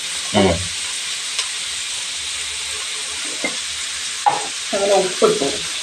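Sliced onions, green chillies and curry leaves sizzling steadily in hot coconut oil in a metal kadai, stirred with a wooden spatula.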